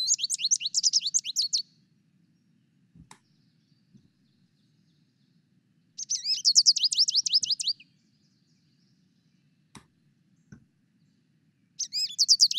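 Recording of an American goldfinch singing: rapid, high twittering. Three bouts of about two seconds each, one at the start, one about six seconds in and one near the end.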